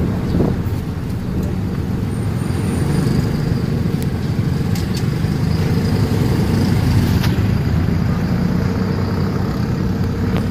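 Tuk-tuk engine running steadily under way, with road and traffic noise heard from the open passenger cab; a faint high whine comes in for a few seconds in the middle.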